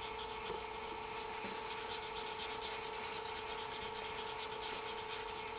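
Marker pen shading in on paper with rapid back-and-forth rubbing strokes, over a faint steady hum.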